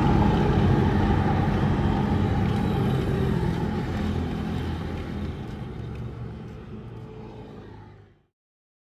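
Yamaha MT15's single-cylinder engine running steadily through an SC Project muffler, fading gradually and cutting to silence about eight seconds in.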